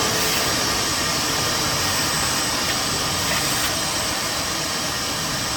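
Shop vac motor running steadily with a loud rushing hiss, its pitch having just risen and settled after switching on.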